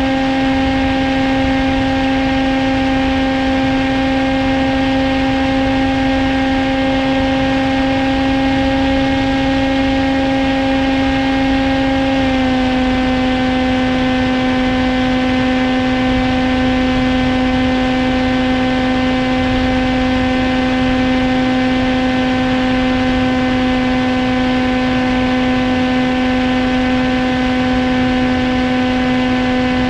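Electric motor and propeller of a Caipi II FPV model aircraft at steady cruise throttle: a constant whine over a rush of wind noise at the onboard camera. The pitch drops slightly about twelve seconds in.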